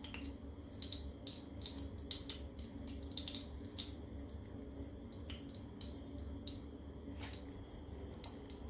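Soft wet squelches and clicks of lentil fritter batter being squeezed and shaped by hand, irregular and several a second, over a steady low hum.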